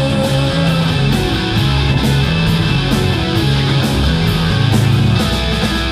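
Rock band playing live: distorted electric guitars with bass and drums, cymbals struck in a steady beat.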